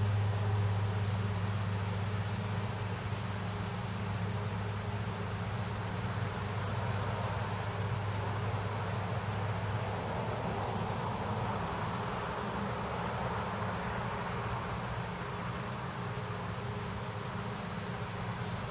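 Neighbourhood road traffic: a steady low hum, with the noise of a passing car swelling and fading about halfway through.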